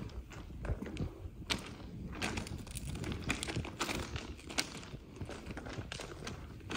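Footsteps crunching on the loose gravel ballast of a railway track, many irregular crackly steps, over a low rumble of wind on the microphone.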